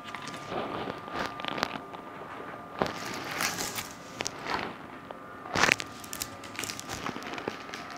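Clear plastic photo-album sleeves crinkling and rustling as pages are turned and handled, in irregular bursts, with sharper crackles about three seconds in and again past halfway.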